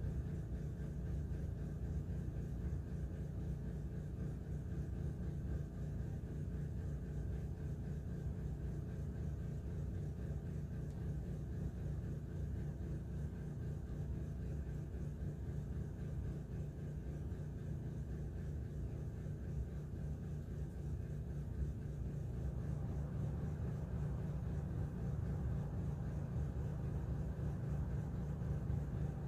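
Steady low background rumble with a faint hum, unchanging throughout, with no distinct strokes or knocks.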